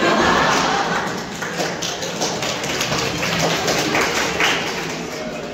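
Classroom audience applauding: a burst of many hands clapping that starts loud and slowly thins out.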